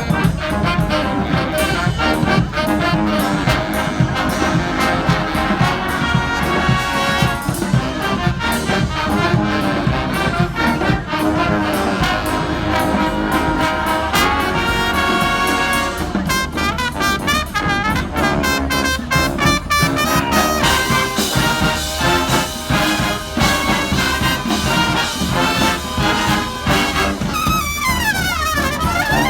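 Street brass band playing, trumpets and trombones carrying the tune over a steady beat, with sliding pitches near the end.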